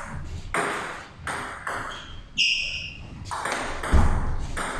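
A table tennis rally: the celluloid-type ball clicking off rubber-faced bats and pinging on the table in an irregular run of sharp hits, with one clear ringing ping about halfway through. There is a louder low thud about four seconds in.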